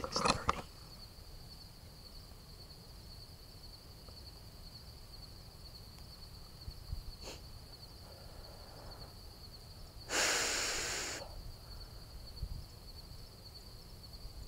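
A person's heavy exhale close to the microphone, lasting about a second, a little over two-thirds of the way in, over a steady high-pitched insect drone. A brief rustle at the start and a single click near the middle.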